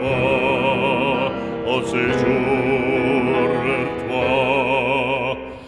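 Operatic singing of a French hymn: a voice holds long notes with wide vibrato over steady instrumental accompaniment. The music fades near the end.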